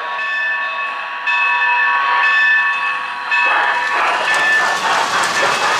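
Steam whistle effect from the sound system of an O-gauge model Hiawatha 4-4-2 steam locomotive: a steady multi-note chord held for about three seconds. It gives way to a louder hissing rush of steam and running-train noise.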